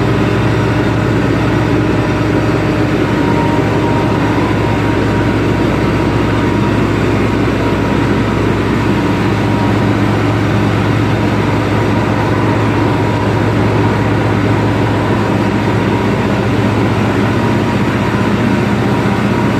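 Loud, steady drone of a heavy diesel engine running without change, with a low hum and a faint steady whine on top.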